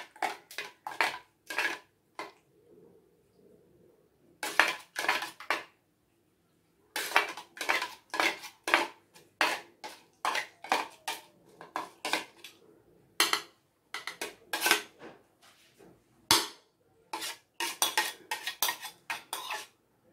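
A metal spoon scraping and knocking against a perforated stainless steel conical strainer as it presses wet beetroot pulp through the holes. It comes as a run of short strokes, about three a second, with a few brief pauses.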